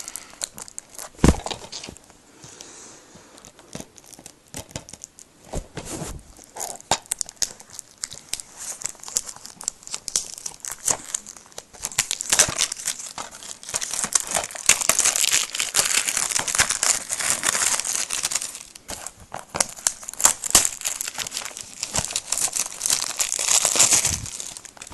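Plastic wrapping on a DVD case crinkling and tearing as it is picked at and pulled off: scattered short rustles and clicks at first, then a long, dense spell of crinkling from about halfway through until just before the end.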